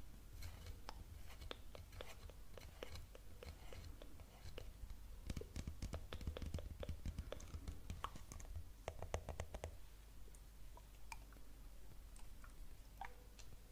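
Close-miked ASMR clicking and tapping: a run of small sharp clicks, densest in the middle, with some whispering.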